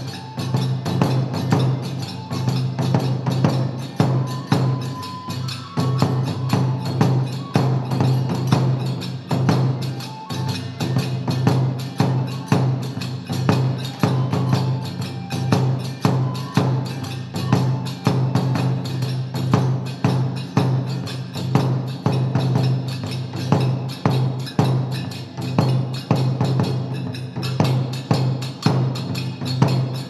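Kagura accompaniment for the gongen-mai lion dance: percussion struck in a fast, steady, driving rhythm, with sharp woody clacks and drum beats throughout, and a brief held high note a few seconds in.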